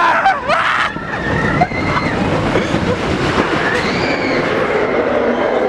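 Expedition Everest roller coaster train running along its steel track, heard loud from on board: a steady rolling rush of wheels on rail with a few brief high, gliding tones over it.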